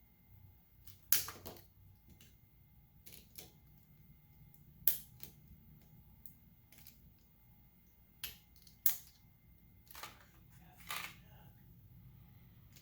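Sharp plastic clicks and taps from handling the parts of an opened PS4 controller, about ten of them, irregularly spaced, over a faint low hum.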